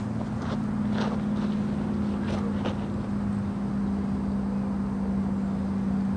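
A steady low mechanical hum, like a motor running at an even speed, holding one pitch throughout. A few short faint chirps or squeaks sound during the first three seconds.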